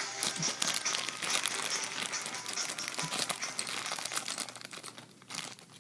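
Plastic packaging crinkling and rustling as it is handled and opened, a dense run of small crackles that thins out near the end.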